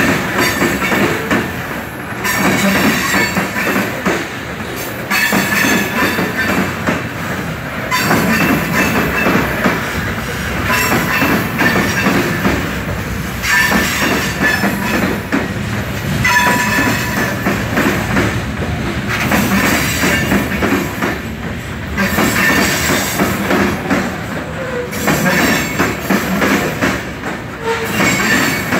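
Loaded covered hopper cars of a freight train rolling past, steel wheels clattering over the rails and squealing briefly on the curve. The clatter swells every two to three seconds as each car's wheel sets go by.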